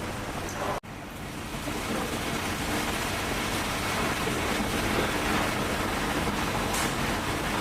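Steady hiss of machine noise with a faint low hum, broken by a very short drop-out about a second in.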